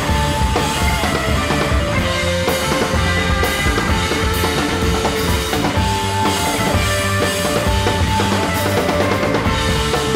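Music with a drum-kit beat under held melodic notes, in the manner of a rock track.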